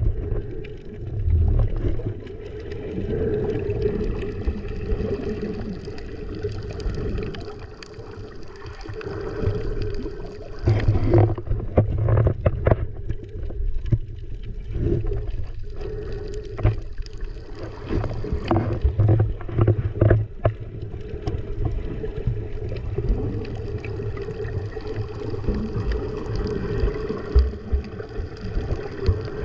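Muffled water sloshing and gurgling against a camera while snorkeling, over a steady low rumble, with scattered sharp clicks and knocks, thickest in the middle.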